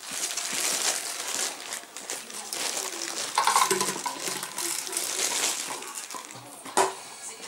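Empty plastic bottle crinkling and clattering on a tiled floor as a German Shepherd puppy noses and pushes it about, with one sharp clack near the end.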